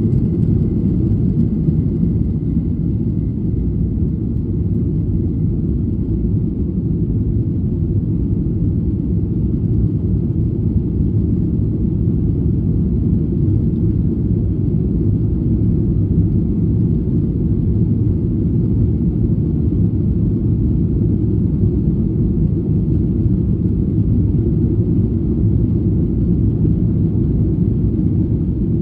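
Boeing 737-800's CFM56-7B turbofan engines at takeoff thrust, heard inside the cabin as a steady low rumble through liftoff and the initial climb.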